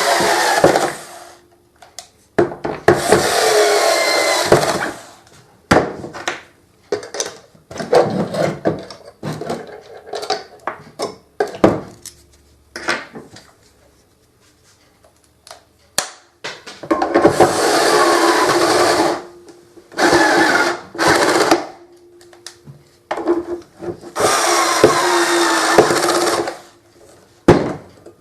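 Electric screwdriver driving screws into a vacuum cleaner's plastic housing, in several whirring runs of one to two and a half seconds with a steady hum. Clicks and knocks of the screws and housing being handled fall between the runs.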